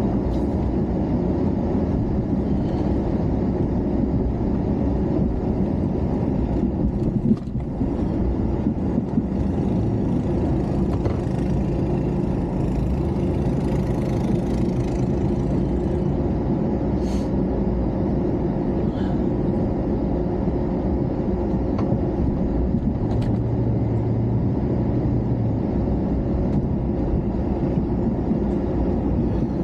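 Engine running steadily, a continuous low rumble with little change.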